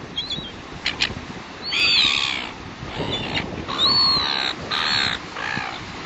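Seagulls giving several harsh, squawking calls, the loudest about two seconds in and again around four and five seconds, over a steady rush of wind and surf.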